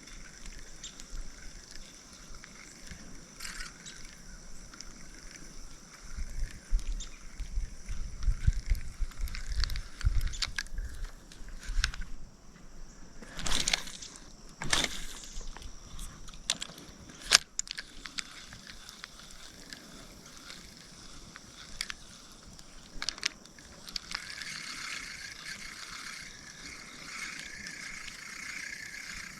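Spinning fishing reel being cranked in steady turns during a retrieve toward the end. Earlier, wind gusts rumble on the microphone, followed by two loud whooshes and a sharp click about halfway through.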